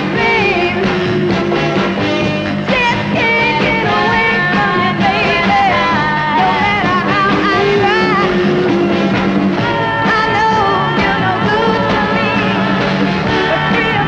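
A 1960s Motown pop-soul song: a lead voice singing over a full band.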